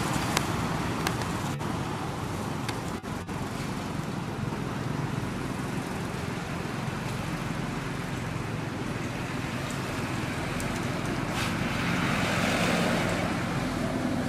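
Steady road traffic noise, swelling as a vehicle passes near the end, with a few faint clicks early on.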